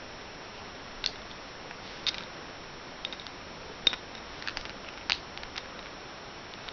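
Loose plastic Rubik's cube pieces clicking now and then as they are picked through by hand, a few separate sharp clicks over a steady background hiss.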